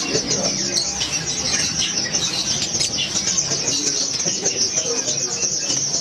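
A room full of caged small birds chirping together in a dense, continuous high chatter, with no single call standing out.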